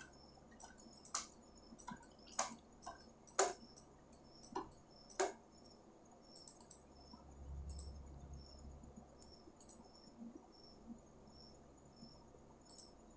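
Computer mouse clicking at irregular intervals, the strongest clicks in the first five seconds, with a faint high chirp repeating about twice a second behind it.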